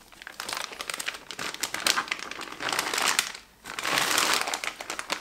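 Plastic vacuum storage bag crinkling and rustling as a filament spool is slid inside it, with a short pause a little past halfway and a louder stretch after it.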